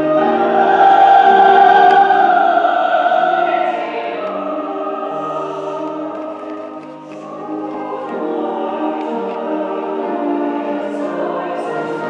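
A choir singing slow, sustained chords, loudest over the first few seconds and then softer, with a brief dip about seven seconds in.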